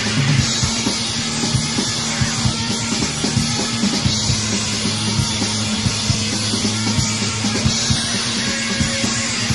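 Noise-rock band recording playing a loud, dense passage: electric guitar, bass and drum kit, with steady drum hits under sustained low notes.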